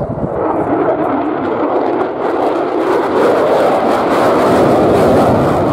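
Jet engine of an RAF F-35 Lightning flying past, a loud steady rush of jet noise that grows louder over the last couple of seconds.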